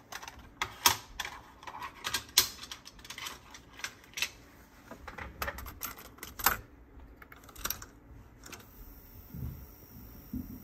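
Quick plastic clicks and clatter of a cassette tape being handled and loaded into the open cassette door of an Akai GX-9 deck, followed by a few separate clicks from the door and the front-panel buttons. A faint high whine starts near the end.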